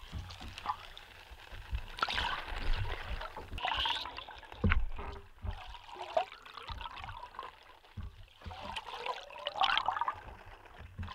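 A bladed musky lure heard underwater through a hydrophone as it is pulled through the water and swept beside the boat: watery gurgling and swishing that swells and fades several times, with a few low thumps.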